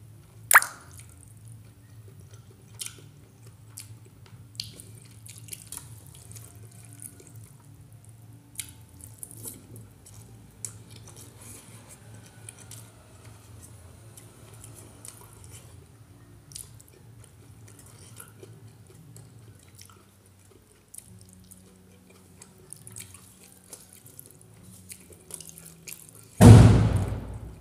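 Close-up sounds of eating small-fish curry and rice by hand: scattered faint wet clicks and chewing as the fingers pick through the fish. A sharp click about half a second in and a loud, heavier noise lasting about a second near the end.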